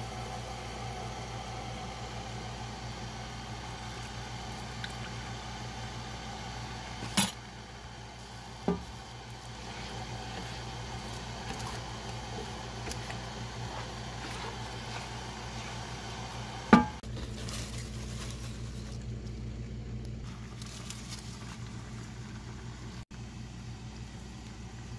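Metal utensils clanking against a skillet three times, the loudest about 17 seconds in, over a steady low hum while a cream sauce cooks.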